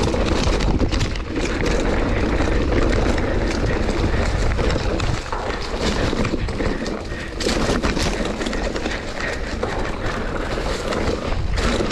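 Mountain bike riding down a rough dirt trail: a constant rattle and clatter from the bike over the bumpy ground, with a low rumble of wind on the camera microphone.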